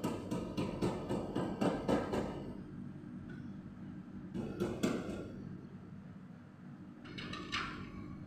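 A run of quick knocks and clatter, then a few more knocks midway and a short falling squeak near the end, over a steady low hum.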